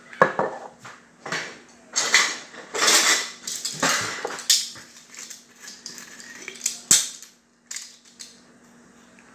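Crackling and crunching of garlic cloves being worked by hand: a run of short, crackly bursts that stops about seven seconds in. A faint steady hum runs underneath.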